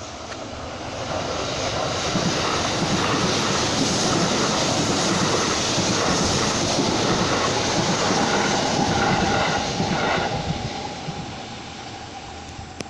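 Kintetsu Series 21 electric commuter train passing close by. Its running noise swells over the first two seconds, holds for about eight seconds, then fades away near the end.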